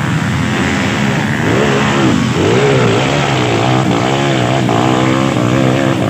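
Dirt bike engines: one running steadily while another revs up and down repeatedly, starting about a second and a half in.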